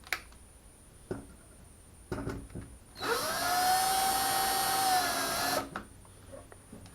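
Power drill driving a screw into the wall, running steadily for about two and a half seconds with its pitch sagging slightly just before it stops. A few light clicks and knocks come before it.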